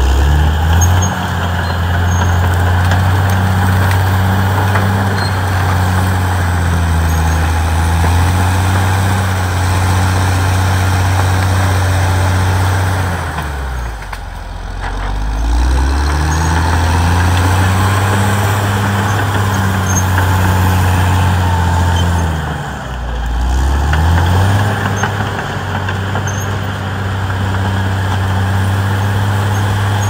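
Caterpillar D6R XL crawler bulldozer's diesel engine running hard while the dozer pushes through brush and felled trees. It holds a steady pitch, and twice the engine speed sags and then climbs back up, about halfway through and again about three-quarters through.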